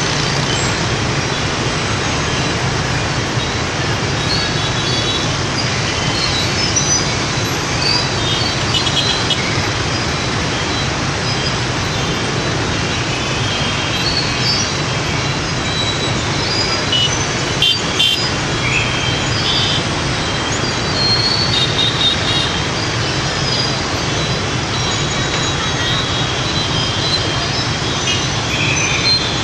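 Dense rush-hour street traffic, mostly motorbikes: a steady mass of engine and road noise with frequent short, high-pitched horn beeps.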